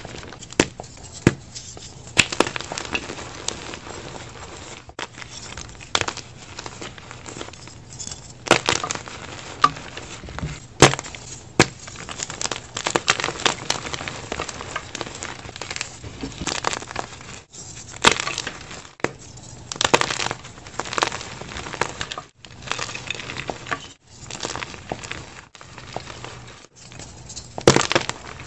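Dyed gym chalk being crumbled and crushed by hand: a steady powdery crunching, broken by frequent sharp snaps and cracks as chunks break apart between the fingers.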